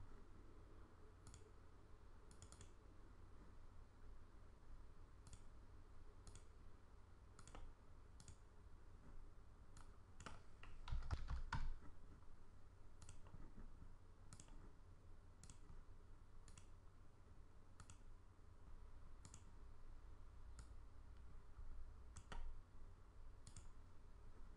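Faint computer mouse clicks, single and spaced a second or more apart, over a low steady hum, with a short quicker run of clicks and keystrokes about eleven seconds in.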